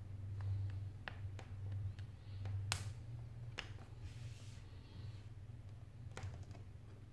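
Scattered sharp clicks and taps of fingers working at the edge of an iPad 4's shattered touchscreen glass as it is lifted from the frame. The sharpest click comes about two and a half seconds in, and a brief soft scrape about four seconds in, over a steady low hum.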